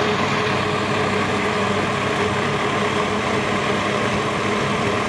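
Binatone countertop blender running with a steady motor hum, churning tomato flesh into a thick paste with no water added.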